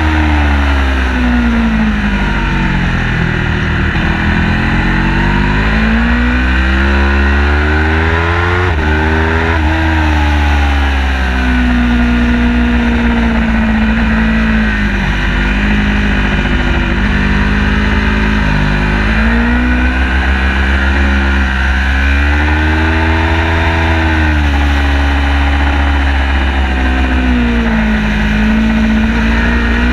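Car engine being driven hard on a race circuit, its pitch repeatedly climbing under acceleration and falling away for braking and corners, over a steady low rumble of road and wind noise.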